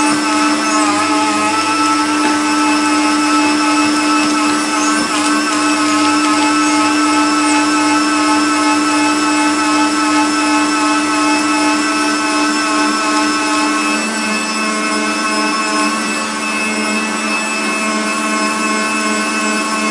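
Electric meat grinder's motor running steadily as it grinds horseradish root through its finest plate, with a steady whine. About fourteen seconds in its pitch drops a little and it gets slightly quieter.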